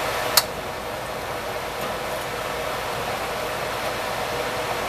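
Hush puppies deep-frying in a pot of hot oil, a steady sizzle, with one sharp click near the start as the slotted metal skimmer knocks against the pot.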